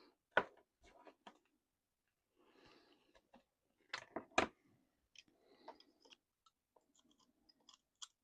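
Scattered clicks, taps and light knocks of small parts and hand tools being handled while taking apart an RC truck, with faint rustling between them; the loudest knocks come about half a second in and around four seconds in.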